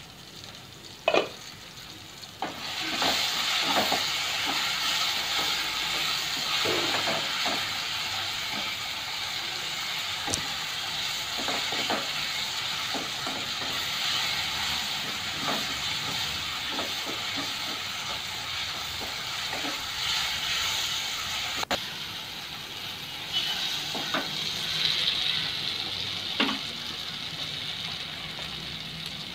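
Onions and tomatoes frying in an open nonstick kadai with a steady sizzle while a spatula stirs and scrapes them round the pan, as the onion-tomato base is sautéed soft. A sharp knock comes about a second in, and the sizzle swells up about two and a half seconds in.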